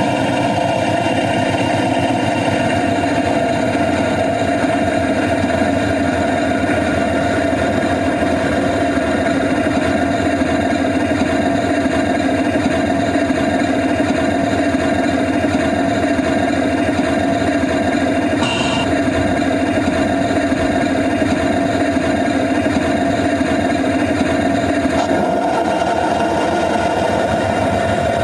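Small engine of a ride-on miniature railway train running steadily, with a fast even beat and a steady hum. A brief high-pitched tone sounds about two-thirds of the way through.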